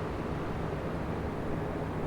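Three oscillating electric fans running together: a steady rush of moving air with a low hum beneath it.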